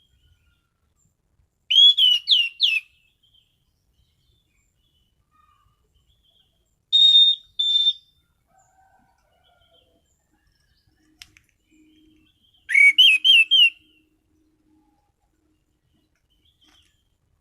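Anis Cendana thrush singing in three short, loud phrases: a quick run of sliding whistled notes about two seconds in, two clear level whistles around seven seconds, and another quick run of rising and falling notes near thirteen seconds.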